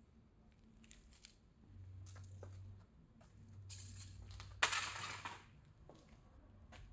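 Faint handling and rustling noise from a handheld phone over a low hum, with scattered small clicks and a louder rustle a little past halfway through.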